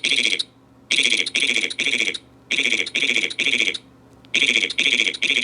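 A 'yeet' voice sound effect sped up so far that it sounds like shrill alarm-like beeps, coming in quick groups of three about every second and a half.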